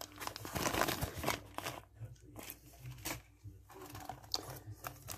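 Clear plastic parts bag crinkling as it is handled, for about the first second and a half, followed by scattered light rustles and taps.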